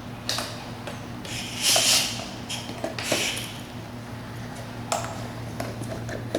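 SCBA breathing gear being taken off air: short hisses of air, the loudest about two seconds in and another about three seconds in, with a few sharp clicks, over a steady low hum.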